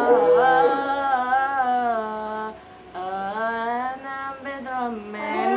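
A young woman singing unaccompanied in long held, slightly wavering notes, two phrases with a short break between them.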